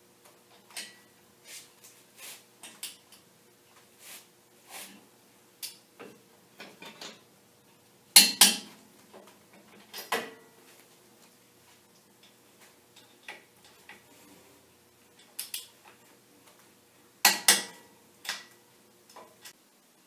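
Socket wrench and metal parts clinking in short, scattered clicks as the steering-knuckle-to-hub bolts on a Dana 30 front axle are tightened, with two louder metal clanks, one about eight seconds in and one about seventeen seconds in.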